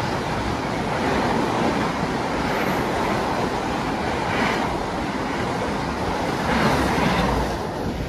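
Passenger train passing at speed, a steady rush of wheel and rail noise from its carriages that swells briefly twice and starts to fade near the end.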